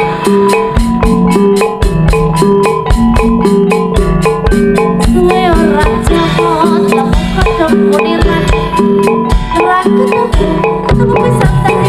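Jaranan accompaniment music: gamelan-style metal mallet percussion playing repeating notes over a steady, even drum beat, with a bending melody line in the middle, loud through a sound system.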